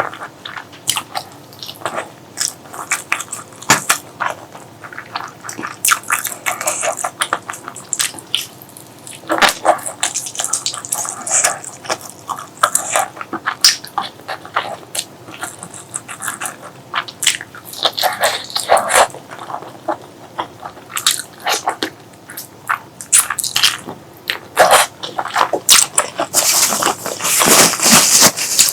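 Close-miked eating sounds of someone eating spicy pork leg curry with rice: chewing and lip-smacking in many short, irregular smacks, with denser bursts near the end.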